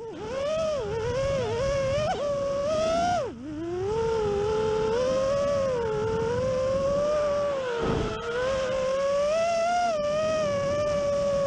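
FPV quadcopter's electric motors and propellers whining, the pitch rising and falling with the throttle. About three seconds in the throttle is briefly cut, the pitch drops sharply, then climbs back. There is a short rush of noise about eight seconds in.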